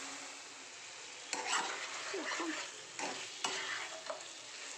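Chicken in a thick green coriander-yoghurt masala sizzling in a wok, then a spatula stirring and scraping it around the pan in short strokes, starting a little over a second in. This is the masala being fried down (kosha) until its liquid cooks off.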